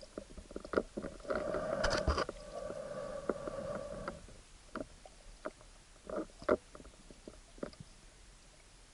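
Muffled underwater sound through an action camera's waterproof housing: scattered clicks and knocks, and a steady drone for about three seconds near the start.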